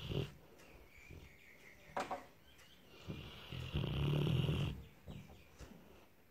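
Large black dog snoring in its sleep: a long snore about four seconds in, with shorter, softer breaths around it and a sharp click about two seconds in.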